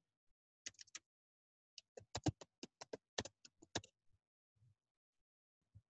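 Computer keyboard typing: a few keystrokes about a second in, then a quicker run of keystrokes lasting about two seconds.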